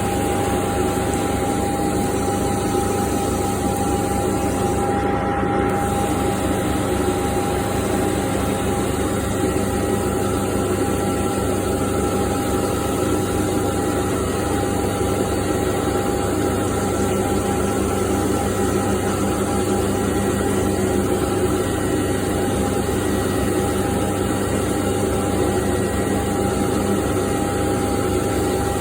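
CNC machining centre cutting SS400 steel: a steady machining sound with a constant high tone over a rough, noisy bed, unchanged throughout.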